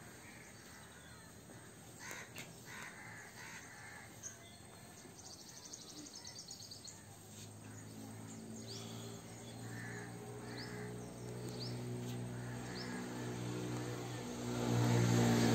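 Crows cawing and small birds chirping. A low, steady motor hum grows louder through the second half and is loudest near the end.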